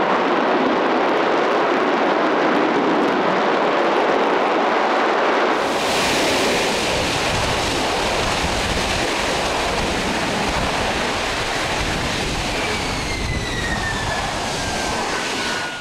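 Jet engine of the Boeing X-32B STOVL demonstrator running at hover power, a loud continuous rush of jet exhaust during a vertical descent and landing. The sound changes suddenly about six seconds in, with more low rumble. Near the end a falling whine comes in as the engine winds down after touchdown.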